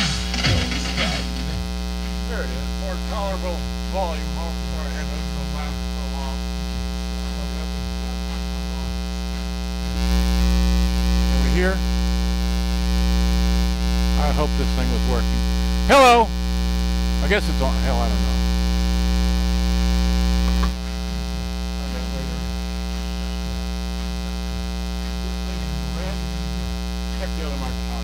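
Steady 60 Hz mains hum with a stack of overtones, ground-loop noise induced into the recording by running the camera from its AC adapter. The hum grows louder for about ten seconds from roughly a third of the way in, with faint sliding whistles and a short click over it.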